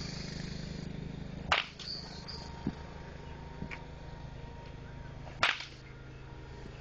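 Two sharp cracks of a baseball bat hitting a ball, about four seconds apart, over a steady low hum.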